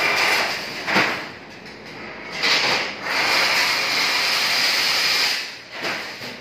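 Chain-link fence weaving machine running: spells of loud mechanical noise with no clear pitch, each a second or two long, with a sharp click about a second in and a quieter stretch after it.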